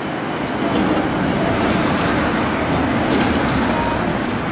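Steady city street noise of road traffic, heard from a tram standing at a stop, growing a little louder about a second in.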